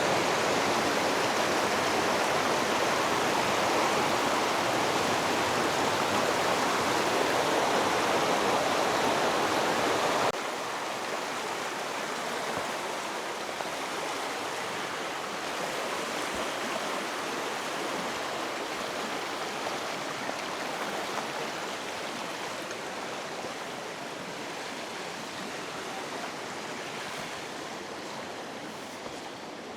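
River water rushing over rocks, a loud steady rush. About ten seconds in it cuts suddenly to a quieter, hissier stretch of flowing water.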